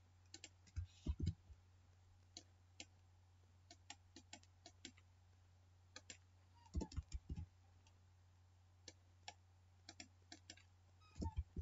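Faint, irregular clicks of a computer keyboard and mouse, with a few heavier keystroke thumps about a second in and again around seven seconds, over a low steady hum.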